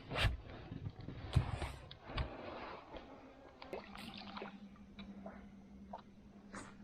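Several knocks and bumps against a small aluminium boat, with water sounds. About four seconds in, a steady low hum starts, with light clicks over it.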